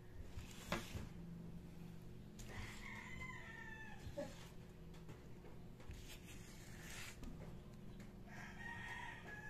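A rooster crowing twice, about two and a half seconds in and near the end, each crow one long call of about a second. A sharp knock a little under a second in is the loudest sound.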